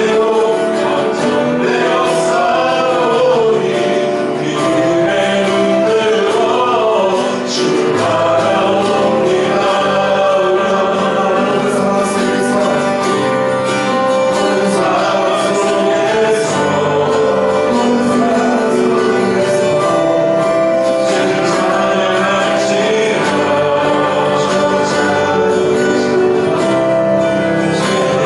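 A church praise team singing a worship song with several voices together over a full band, with cymbal strokes and held notes throughout.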